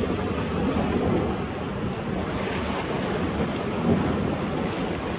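Wind rushing over the microphone at the seashore, with small sea waves washing in a steady rush; no distinct tones.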